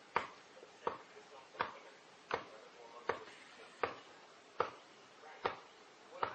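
Sharp knocks repeating at an even pace, about one every three-quarters of a second, nine in all.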